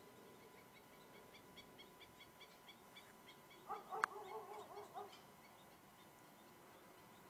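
A short burst of wavering, pitched animal calls, squawking several times, with one sharp click about four seconds in. Faint, regular high chirping runs underneath.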